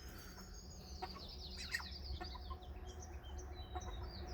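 Small birds chirping and twittering high and faint, with a quick run of chirps about one and a half seconds in, over a steady low rumble.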